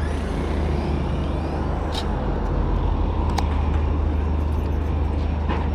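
City street noise: a steady rumble of road traffic, with a few short sharp clicks.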